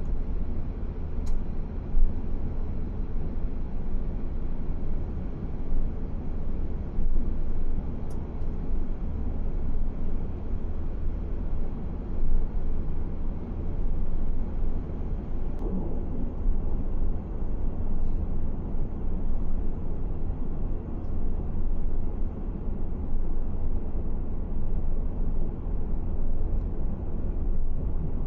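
Car driving at a steady speed: an even, low rumble of road and engine noise.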